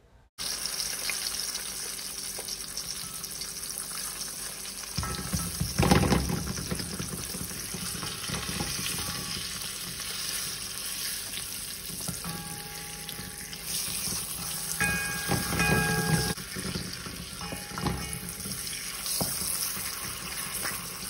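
Hot oil sizzling steadily in a pot as curry powder fries in it with garlic and hot peppers, being 'burned' before the chicken goes in, stirred with a wooden spoon. A knock about six seconds in, with a few lighter knocks later.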